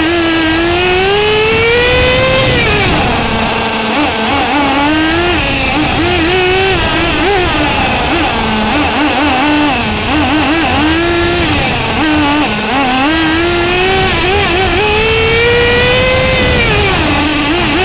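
Nitro engine of a Bycmo RC car heard from the car itself at full race pace. It rises in pitch on the straights and drops off into the corners, with a run of quick throttle blips through the twisty middle section and a long pull near the end.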